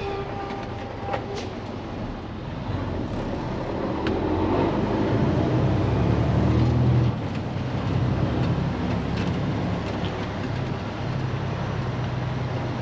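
Day-cab semi truck's diesel engine running under way, heard from inside the cab. The engine pulls louder for a few seconds, then drops off suddenly about seven seconds in, with a couple of light clicks about a second in.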